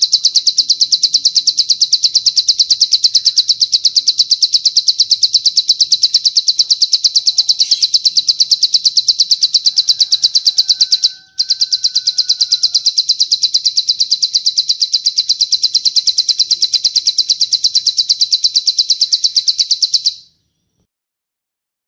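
Long, rapid 'cililin' bird trill: high notes repeated many times a second at an even pace, played as master song for training ciblek sawah (plain prinias) to mimic. It breaks off briefly a little past halfway, resumes, then stops short about two seconds before the end.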